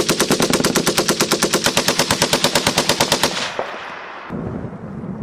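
Belt-fed machine gun firing one long automatic burst of about three seconds, at roughly eleven to twelve shots a second, then stopping and leaving a rolling echo.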